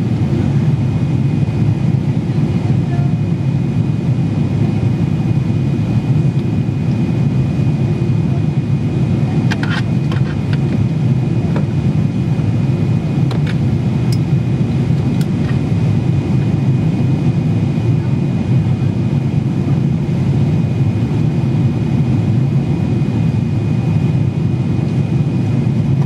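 Cabin noise of a Boeing 777-300ER in flight, heard from a window seat over the wing: the steady, deep roar of its GE90 engines and the airflow, with a faint steady high whine. A few faint clicks come about halfway through.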